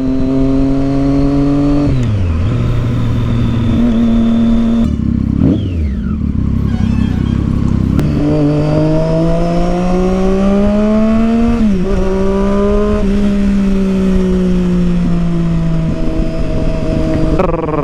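Triumph Street Triple 675's inline-three engine through a loud Yoshimura aftermarket exhaust, on the move. The revs fall about two seconds in, climb steadily from about eight seconds, drop sharply near the middle, then hold nearly level.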